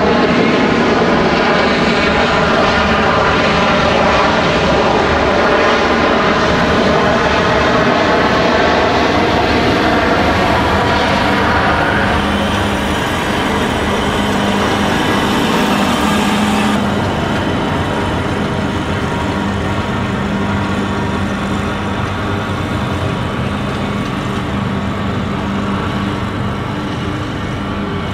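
Turbofan engines of a Bombardier CRJ regional jet at takeoff thrust, a loud jet roar with whining tones that slowly shift in pitch as it rolls down the runway and climbs away. About two-thirds of the way through, the sound abruptly turns duller and a little quieter.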